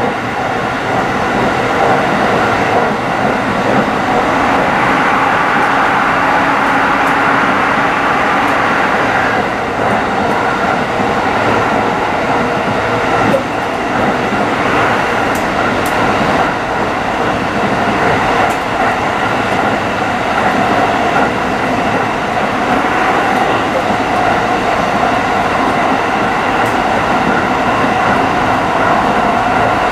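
Tsukuba Express electric train running at speed, heard from inside its rear cab: steady wheel-on-rail running noise with a held hum of several tones.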